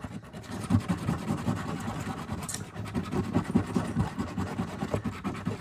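Scratch-off lottery ticket being scratched, a fast, steady run of short scraping strokes.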